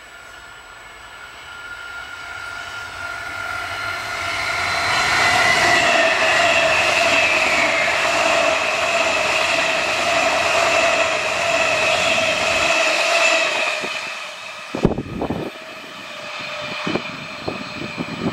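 Munich S-Bahn class 423 electric multiple unit approaching and passing at speed: a rising rush of wheels on rail with a steady multi-tone whine from the traction motors, loudest midway. About fifteen seconds in, the sound cuts off abruptly to irregular low rumbling thumps.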